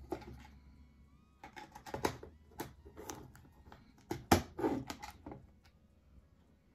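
Irregular plastic clicks and light knocks from a small quartz wall clock being handled and turned in the hands, with the loudest click a little over four seconds in.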